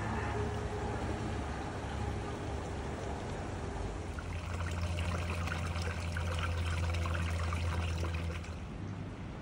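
Water trickling and splashing into a rock-edged garden pond. It grows louder about four seconds in and fades near the end, over a steady low rumble.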